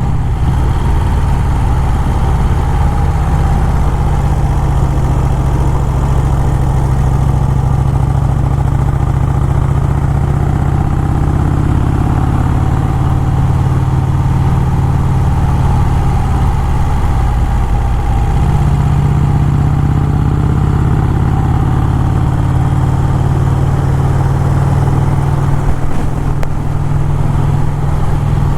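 1951 Vincent Rapide V-twin motorcycle engine running steadily while being ridden. The engine note steps up slightly about two-thirds of the way through.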